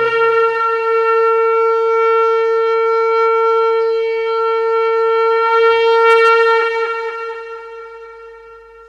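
Conch shell (shankh) blown in one long steady note that swells about six seconds in, then dips in pitch and fades away near the end.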